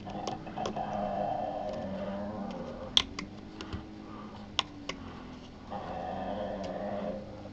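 Hobby knife scraping and prying printed pewter parts off a PLA sheet, giving sharp scattered clicks and ticks as the blade catches the firmly stuck metal. A steady machine hum runs under it, fading out after about two and a half seconds and returning near the end.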